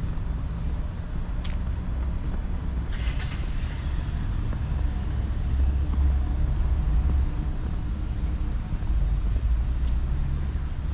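Road traffic on the street alongside: cars passing in a steady low rumble that swells a little past the middle.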